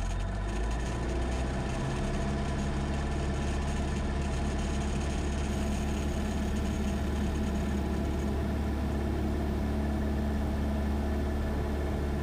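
Cessna light airplane's piston engine and propeller at takeoff power during the takeoff roll: a steady drone that rises a little in pitch and loudness in the first second or two as power comes up, then holds level.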